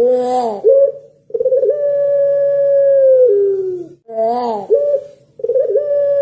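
Puter pelung (long-cooing domestic Barbary dove) cooing: a short rising-and-falling note, then a long, steady held coo that drops in pitch at its end. The pattern starts over about four seconds in.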